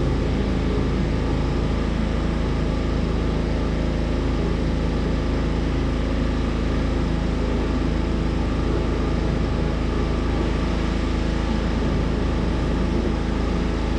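Vehicle engine idling steadily: a constant low hum with an even hiss over it.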